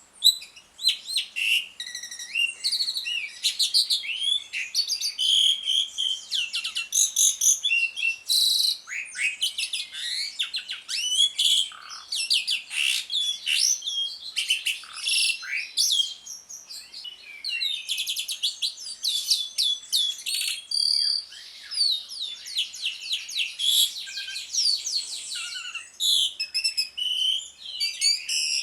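Javan pied starling (jalak suren) chattering continuously, a rapid, varied run of squeaky whistles and harsh notes with hardly a pause.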